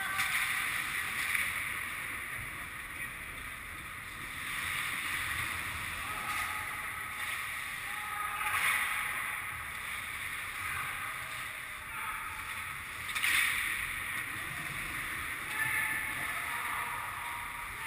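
Ice hockey skates carving and scraping on the ice, echoing in a large domed rink, with two louder scrapes about eight and thirteen seconds in.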